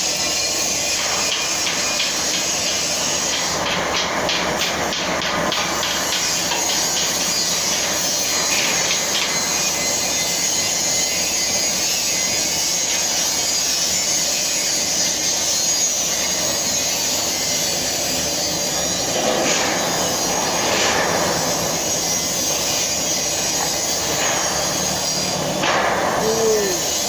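Flux-cored arc welding arc running: a steady, loud hiss with spells of crackle.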